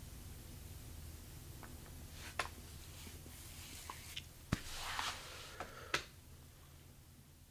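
Quiet room with a low steady hum, a few soft clicks and a brief rustle about five seconds in from a seated person shifting and moving a hand to his face.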